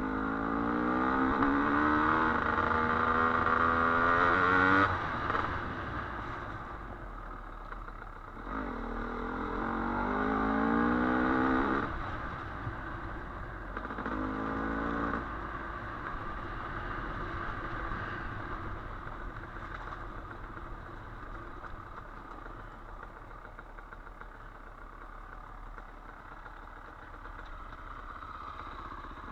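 Dirt bike engine accelerating hard three times, its pitch climbing through each burst, with quieter steady running and some clatter in between and toward the end.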